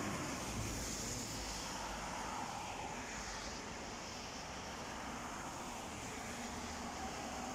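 City street traffic: car tyres hissing on wet asphalt along with engine noise, a nearby car passing at the start and fading away, then a steady rush of more distant cars.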